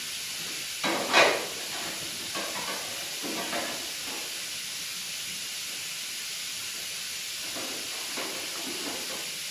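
Steady hiss, with a few brief handling sounds in the first few seconds, the sharpest about a second in.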